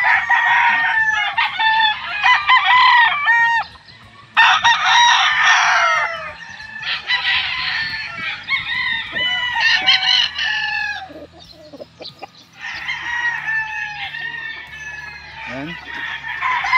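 Several gamecocks crowing at once, their calls overlapping, in bursts with brief lulls about four seconds and eleven seconds in.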